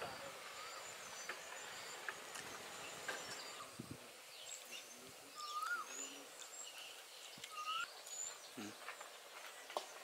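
Faint outdoor ambience with birds calling: scattered high chirps and two clear whistled calls that rise and fall, about five and a half and eight seconds in.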